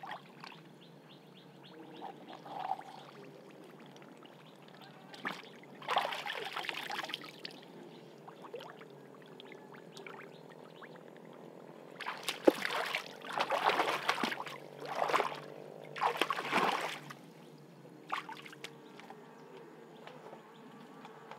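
Splashing in shallow muddy water in several separate bursts with quieter gaps between, as someone wades and grabs a large armored catfish by hand.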